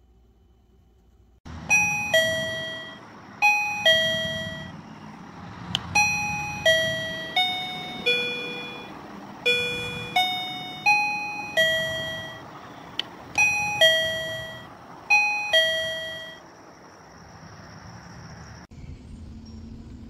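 A KERUI wireless doorbell's plug-in chime receiver playing a chime tune through its small speaker: about sixteen electronic bell notes on four pitches, each struck and fading, several in falling ding-dong pairs, over a steady hiss. The tune stops a few seconds before the end.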